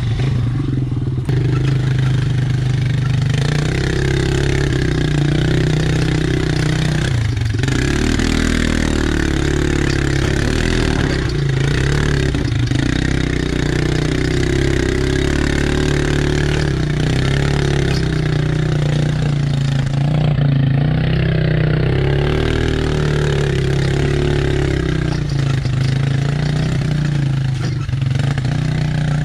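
Off-road vehicle engine (ATV or side-by-side) running steadily at a low, even pace as the machine drives along a trail.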